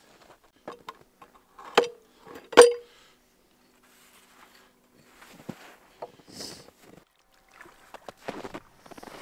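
Two sharp knocks about a second apart, each with a brief ring, then faint scattered clicks and scraping as ice-fishing gear is handled on the ice.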